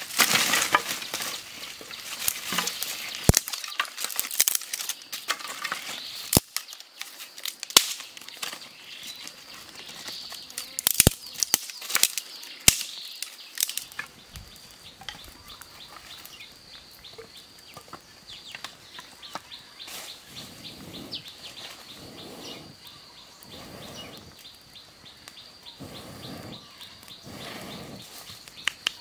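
Dry leaves and twigs rustling and snapping, with sharp cracks in the first half. From about halfway a steady high thin tone with fine ticking carries on, and near the end come several soft rushing puffs as smoking kindling is blown on.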